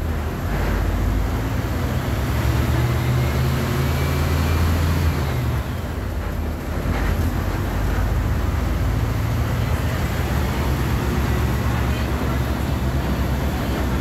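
Diesel engine of a Volkswagen 17.230 OD city bus running, a deep steady note that dips briefly about five and a half seconds in and then picks up again.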